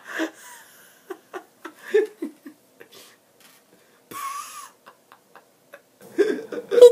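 A man's wordless vocal sounds: a short yell at the start, then scattered short giggles and breaths, a brief high-pitched vocal sound about four seconds in, and more voice sounds near the end.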